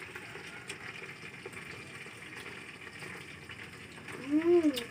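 Faint scattered clicks of eating at a table over a steady hiss, then about four seconds in a child's short hummed sound that rises and falls in pitch, the loudest moment.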